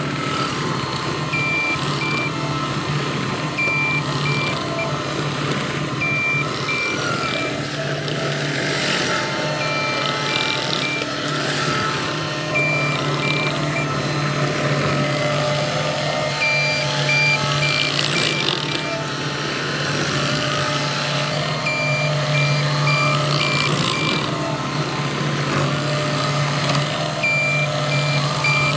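CAT 259D compact track loader's diesel engine running steadily as the machine drives back and forth on gravel, with its reverse alarm sounding in repeated runs of short, high beeps each time it backs up.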